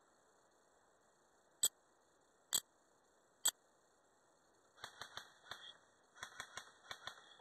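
Three sharp single cracks of airsoft fire, a little under a second apart, then a quicker run of clicks with rustling.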